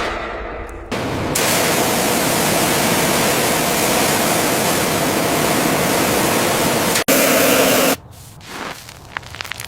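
A loud, steady rushing hiss from about a second in, cutting out briefly near seven seconds and giving way at about eight seconds to quieter, broken noise.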